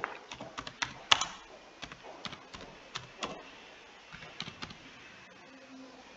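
Typing on a computer keyboard: slow, irregular keystrokes as a word is typed out, the clicks thinning out near the end.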